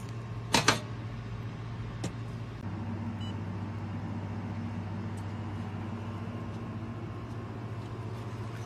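Steady electrical hum of a running fiber laser welding machine, with a few sharp clicks in the first two seconds, the loudest a double snip about half a second in, as the filler wire is trimmed with cutters at the welding head. The hum steps up slightly just under three seconds in.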